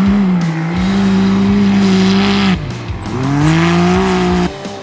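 Off-road race car engine at high revs, holding a high note, falling away about halfway through, then climbing back up before cutting off abruptly near the end, over a music track with a steady beat.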